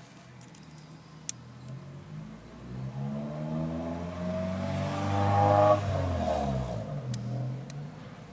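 A car driving past, its engine sound swelling as it approaches and dropping in pitch as it goes by, loudest about two-thirds of the way through. A few sharp clicks sound before and after it.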